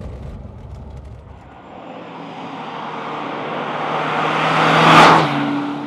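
Muffled cabin road noise, then a Saab 9000 T16 with a turbocharged four-cylinder and aftermarket exhaust driving past: engine and tyre noise build up, peak about five seconds in as the car goes by, and fade with the engine note dropping in pitch.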